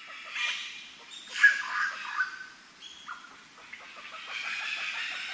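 Several birds chirping and calling over one another, with a louder call about a second and a half in.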